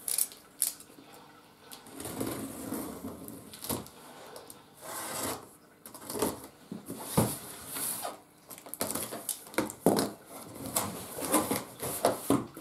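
Packing tape on a cardboard box being slit along its seams, heard as a series of irregular scraping and tearing strokes, with the cardboard flaps being pulled open and knocking near the end.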